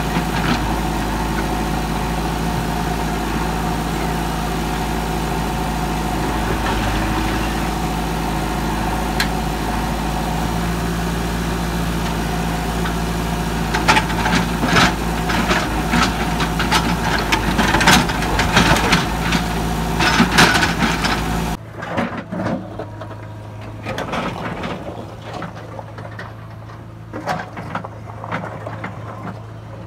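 JCB 3DX backhoe loader's diesel engine running steadily as the backhoe bucket digs into broken rock, with a run of rock scraping and clattering against the bucket in the middle stretch. About two-thirds of the way in, the sound cuts abruptly to a quieter engine note with scattered knocks of rock.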